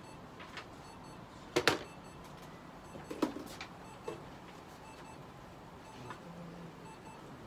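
A few sharp clicks and knocks from handling at a steel exam table, the loudest a quick double knock about one and a half seconds in and weaker ones around three and four seconds, over a faint steady room hum.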